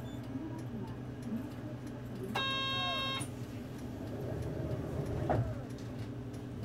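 Nissan Space Runner city bus's engine running steadily, heard from inside the bus. About two and a half seconds in, a single electronic buzzer tone sounds for under a second, and a short knock comes about five seconds in.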